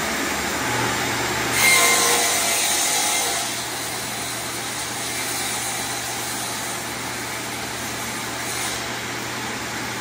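Table saw running and cutting plywood: the noise grows louder for about two seconds as the blade goes through the board, then the saw runs on steadily.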